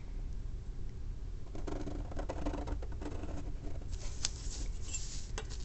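A pen scratching across paper as it is drawn along the edge of a plastic ruler, with a couple of light clicks near the end.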